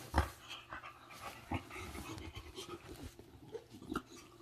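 English bulldog puppy and American bulldog panting and breathing heavily as they play, with a few sharp knocks, the loudest just after the start.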